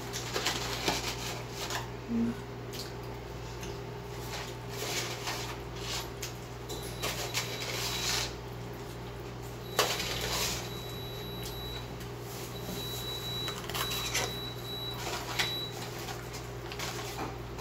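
Paper fast-food wrapper crinkling and rustling in repeated short bursts as it is handled and unwrapped, over a steady low hum.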